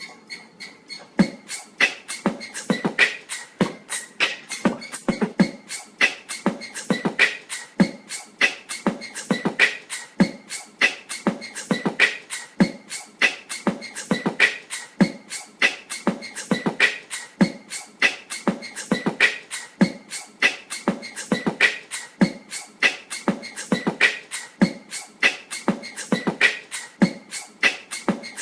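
Wobbling ceiling fan knocking and clicking rhythmically as it turns, several clicks a second with a louder knock about once a second, over a steady high whine.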